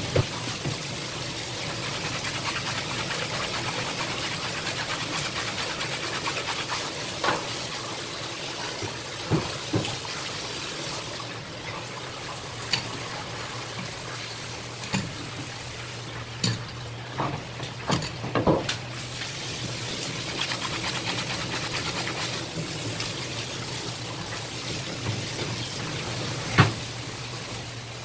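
Tap water running steadily from a spray faucet and splashing onto fish on a plastic cutting board, with a low hum underneath and a scattering of short knocks from the knife and fish being handled on the board.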